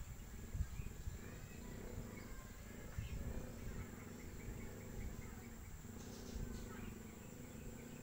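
Outdoor ambience of small birds chirping, with a quick run of chirps about two seconds in, over a steady high insect drone and a low rumble.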